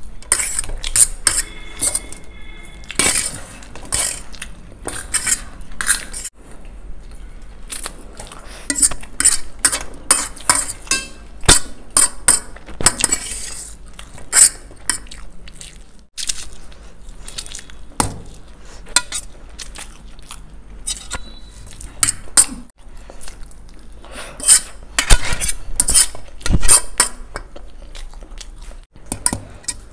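Metal forks clinking and scraping against stainless-steel plates as noodles are picked up, in many short, irregular taps and scrapes.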